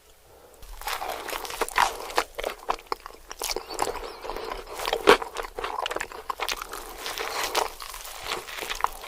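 Close-miked eating sounds: a run of crunchy bites and chewing that starts under a second in, with one especially loud crunch about halfway through.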